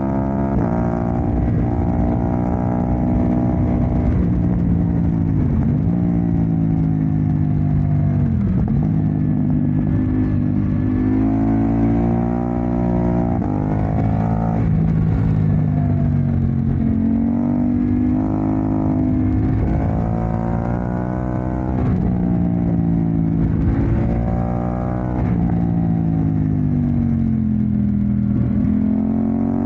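KTM 990 Duke's V-twin engine running through a Remus aftermarket exhaust. The engine note climbs steadily, then drops back sharply, again and again, some eight times.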